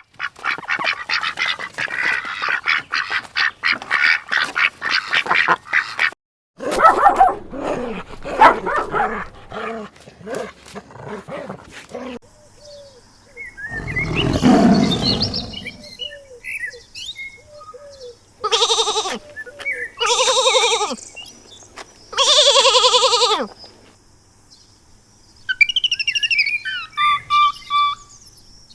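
A string of different animal calls cut one after another. A dense rapid chatter comes first. About two-thirds of the way through there are three long wavering bleats, and bird chirps follow near the end.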